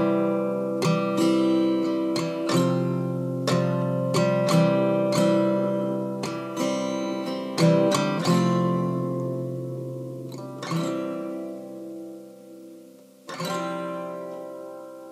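Acoustic guitar strumming chords, each left to ring and fade. The strums come close together at first, then thin out in the second half into a few chords that ring a long time.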